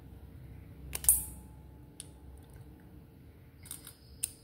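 Scissors snipping open the plastic casing of a small sausage: one sharp snip about a second in, a lighter click a second later, and a few faint clicks near the end.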